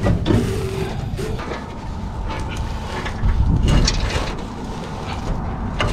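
A wrench on the crankshaft pulley of a 779-cubic-inch Waukesha straight-six making a few clicks and knocks as the engine is turned over by hand, over a steady low rumble. The engine turns: it is not seized.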